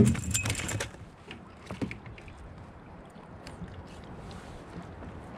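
A sharp, loud thump as a fish is swung aboard and hits the kayak, followed by about a second of rustling and scraping, then a few light clicks and taps as the fish and hook are handled.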